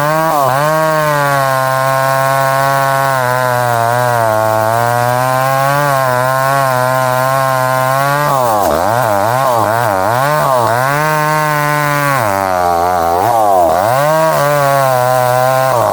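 Chainsaw running at high speed while cutting into a thick tree trunk. Its pitch sags and recovers as the chain bites, a few times early on and then repeatedly and more quickly in the second half.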